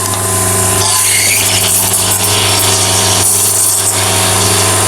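Elektra espresso machine running with a steady mechanical hum and hiss as its pump pushes water through the coffee while pulling a shot.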